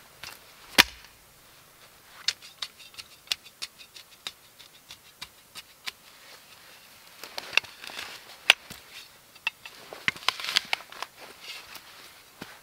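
Small steel shovel blade stabbing and scraping into dry dirt and straw, cutting the outline of a round hole. A sharp knock comes about a second in, then a run of small crunches and ticks, with denser scraping later on.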